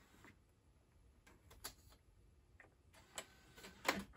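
A few light clicks and knocks as a disc is set in the open tray of a 2002 iMac G4's newly replaced optical drive and the tray is pushed shut. The loudest knock comes near the end.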